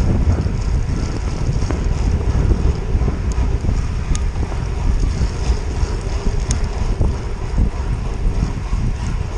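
Wind rumbling on a GoPro's microphone as a road bike rides along a wet road, over a steady hiss of tyres on wet tarmac. A few faint ticks come through in the middle.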